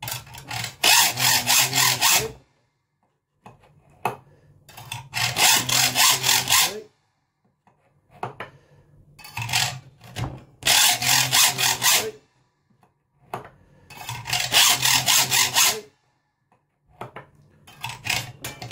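Hand hacksaw cutting teeth into a steel saw plate, guided through the slot of a saw-tooth cutting jig. It goes in five bursts of quick back-and-forth rasping strokes, each two to three seconds long, with short pauses between.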